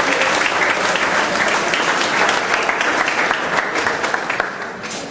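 A crowd applauding, many hands clapping together, dying down near the end.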